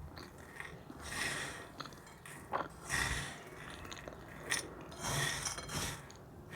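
Crispy cornstarch film crunching and crackling, in several separate crunches about a second apart with one sharper snap.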